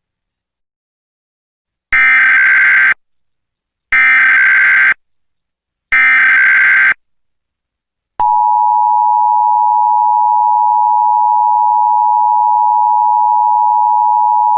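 Emergency Alert System SAME header: three one-second bursts of warbling digital data tones about two seconds apart. About eight seconds in, the two-tone EAS attention signal (853 and 960 Hz) begins, a steady harsh dual tone that holds unbroken.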